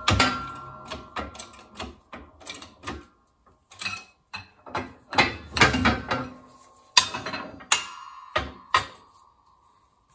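Metallic clicks and clanks from pumping the handle of a bottle-jack hydraulic shop press while it presses a bearing into a mower-deck spindle housing. A few sharper metal knocks about seven to nine seconds in ring briefly.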